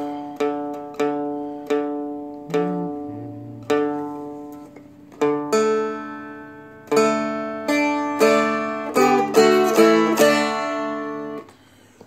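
Seagull Merlin M4, a four-string dulcimer-style instrument, having its strings plucked one at a time, one to two notes a second, each ringing on, then strummed faster in the second half. The strumming stops shortly before the end. The player's hand is at the tuning pegs and clip-on tuner, so this is a tuning check.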